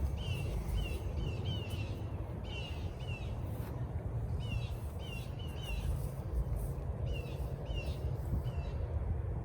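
Wind buffeting the microphone as a steady low rumble, with a bird chirping over it again and again in short, high, down-hooked notes.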